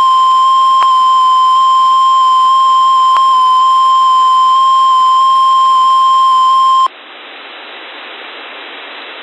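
NOAA Weather Radio 1050 Hz warning alarm tone, one steady high-pitched beep received over the radio during the weekly tone-alert test. It cuts off suddenly about seven seconds in and leaves a steady radio hiss.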